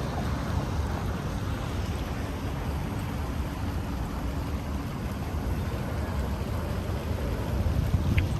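City street traffic: a steady low rumble of passing vehicles, with a faint steady hum that stops about five seconds in.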